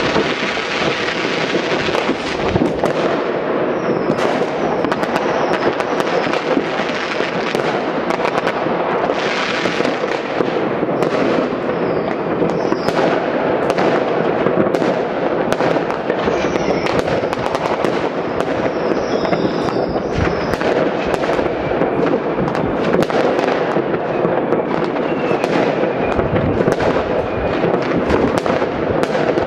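New Year's Eve fireworks and firecrackers going off all over a city: countless bangs and crackles overlapping into one continuous crackling, with occasional short whistles.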